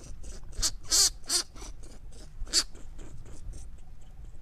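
Short, sharp rustles and crackles of long grass stems being disturbed around a young hare, several in the first three seconds, then quieter.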